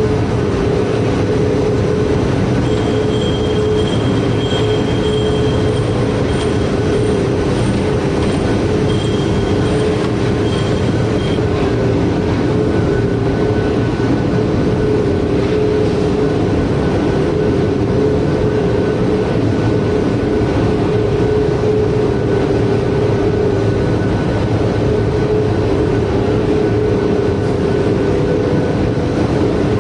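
Automatic printer slotter casemaker production line running: a loud, steady mechanical din with a constant hum, as the board-handling conveyors and stacker run. A faint high, broken whine sounds over it until about eleven seconds in.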